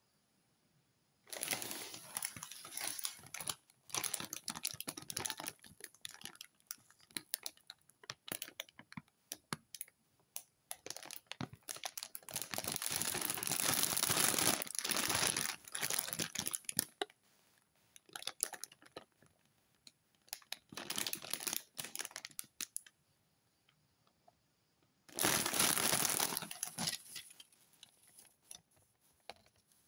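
Plastic food packaging crinkling and rustling as it is handled, in repeated spells with pauses, the longest around the middle and a short loud one near the end. Small clicks and taps fall between.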